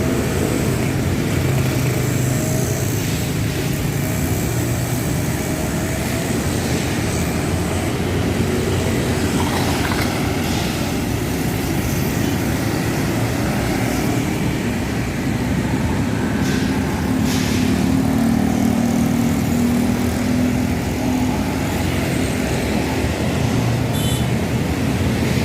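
Bus engines and street traffic: a steady low engine drone that gets a little louder, with a deeper hum, about two-thirds of the way through.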